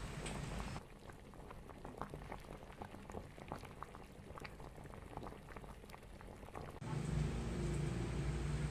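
Soup boiling in an electric rice cooker pot, bubbling with many small irregular pops. A steady low hum sits under it at the start and comes back about seven seconds in.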